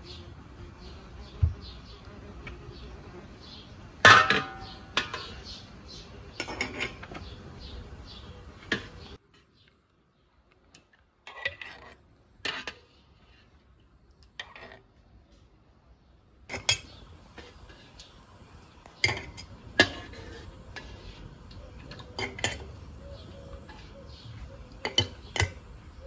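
Metal spoon clinking and scraping against glass jars and an enamel bowl as peach jam is scooped out, in scattered sharp clinks, with a short silent break about a third of the way in.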